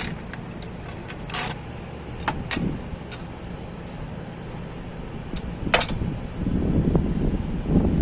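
Several short, sharp metallic clinks over a steady low hum, with a louder low rumble building in the last second or two.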